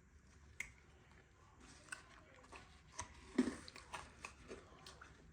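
Freeze-dried candy being bitten and chewed: faint, irregular crunching with small crackles, a little louder about three seconds in.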